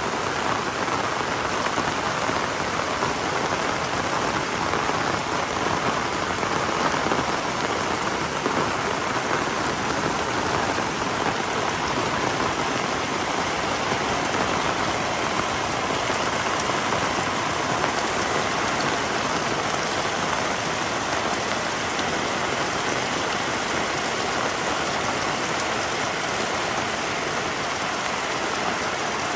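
Heavy rain falling steadily, a dense even hiss of drops on surfaces with no let-up.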